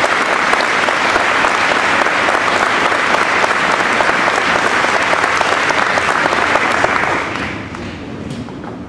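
Audience applauding, dense steady clapping that dies away about seven seconds in.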